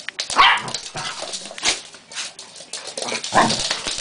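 Two dogs playing rough, a large shaggy dog and a small puppy, giving short pitched cries and whines. The loudest cries come about half a second in and again near the end, with scuffling in between.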